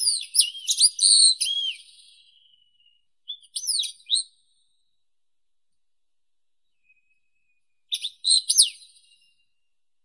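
Wallcreeper singing: three separate phrases of high, quick notes sweeping up and down. A longer phrase at the start trails off, a short one comes about three and a half seconds in, and another about eight seconds in.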